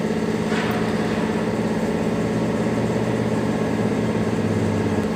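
Diesel truck engine idling steadily, with a brief scratchy noise about half a second in.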